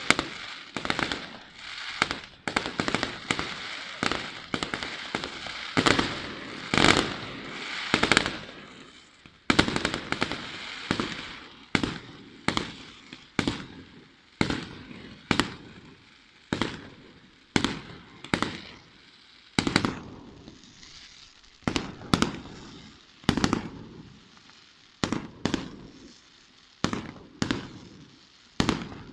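Aerial fireworks display: a rapid volley of shell bursts and crackling for the first several seconds, then single loud bangs about one a second, each dying away over a fraction of a second.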